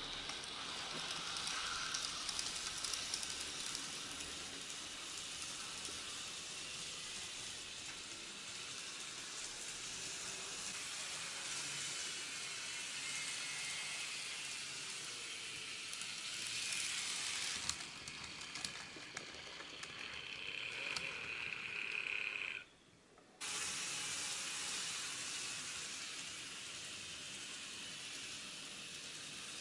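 N-gauge model trains running on the track: a steady hissing rattle of small wheels on rail. A higher whine rises in the later middle, and the sound drops out for half a second about three-quarters of the way through.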